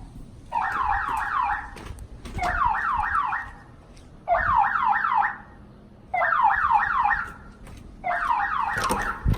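House security alarm sounding in a test: five bursts of rapid falling sweeps, each burst about a second and a half long with short gaps between.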